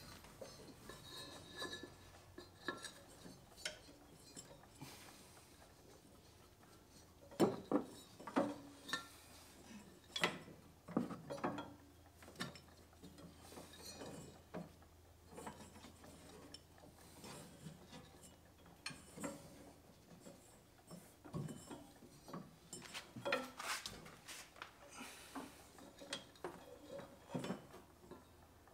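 Irregular light clicks, knocks and rubbing as a rubber deck belt is fed by hand around the pulleys and idlers of a zero-turn mower's steel cutting deck, with a few sharper knocks about a third of the way in and again past the three-quarter mark.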